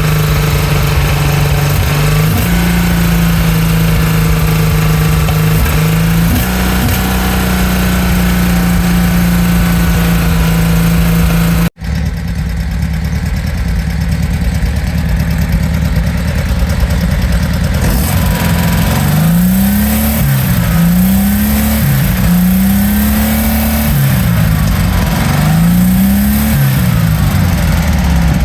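1959 Porsche 356A's freshly rebuilt air-cooled flat-four engine running on its first start-up, holding a steady fast idle. After a brief cut about halfway through, it is blipped up and back down several times near the end.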